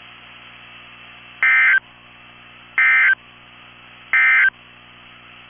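Three short bursts of Emergency Alert System SAME data tones, the raspy two-tone digital squawk of the End of Message code, about a second and a half apart over a faint steady hum. They mark the end of the broadcast severe thunderstorm warning.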